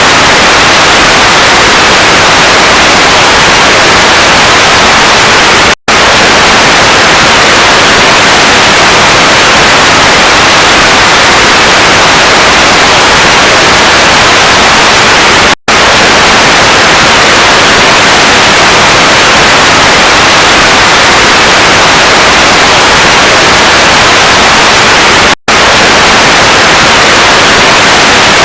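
Loud, continuous white-noise static hiss, like an untuned TV or radio, cutting out for an instant three times, about every ten seconds.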